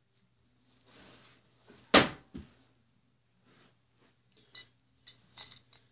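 Small toys being handled and dropped: a rustle, then a sharp knock about two seconds in with a lighter one just after, and a run of light clicks and clatters near the end.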